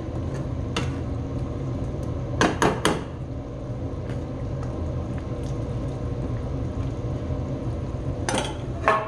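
Steel ladle stirring curry in a metal pan, knocking against the pan: a quick cluster of about three clinks about two and a half seconds in, two more near the end, and a few lighter taps between. A steady low rumble runs underneath.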